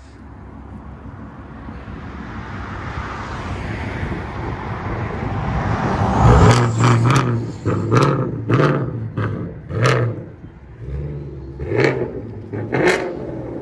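2018 Ford Mustang GT's 5.0-litre V8 through a 3-inch straight-piped dual exhaust, driven hard. Its sound builds steadily for about six seconds, then breaks into a string of about ten loud, short, sharp revs with cracks.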